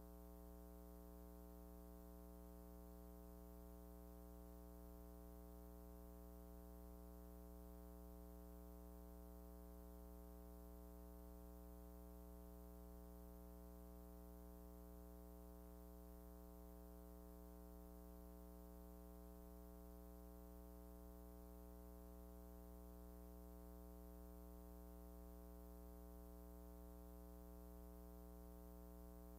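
Near silence with a faint, steady electrical hum that does not change.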